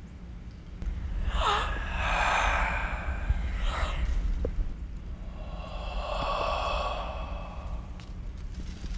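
A person sighing and breathing out heavily: three long, breathy exhalations, the first with a brief voiced catch, over a steady low rumble.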